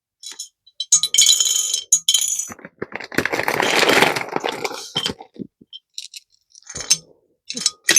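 Small jewellery charms clinking and rattling against a jar as they are put in and shaken. There is a short burst of bright clinks about a second in and a longer rattle a little later.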